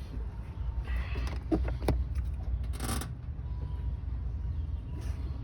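Light metallic clinks and rattles of tools and parts being handled during an under-hood repair, clustered between about one and two seconds in, with a short hiss-like burst near the middle, over a steady low rumble.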